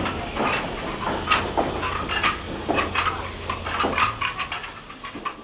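Irregular clinks and knocks of hand tools and stone during building work, several a second, with a low hum underneath that stops about four seconds in. The sound fades out near the end.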